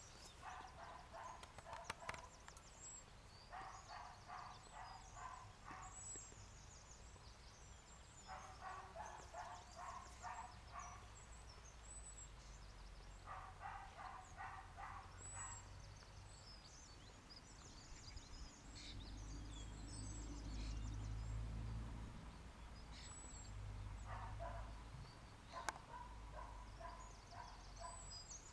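A distant dog barking in quick runs of barks, about five bouts of two seconds each, faint against the open air, with small birds chirping high above it. From about two-thirds of the way in, a low rumble of wind on the microphone becomes the loudest sound.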